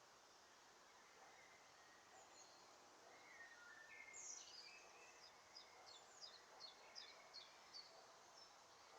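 Faint small-bird calls in the background: scattered high chirps, then a run of short, high, falling notes repeated about two or three times a second in the second half.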